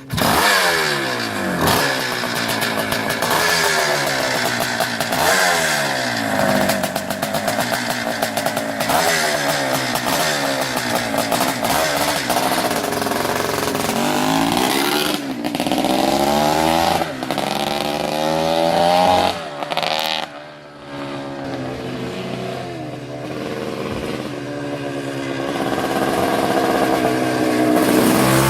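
1974 Suzuki TM400's single-cylinder two-stroke engine running and being revved over and over, its pitch rising and falling in repeated sweeps. About twenty seconds in it drops briefly to a low, quieter note, then climbs steadily again near the end.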